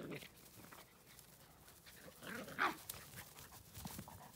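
Puppy and small dog play-fighting, giving short vocal noises, with a sharp high yelp about two and a half seconds in.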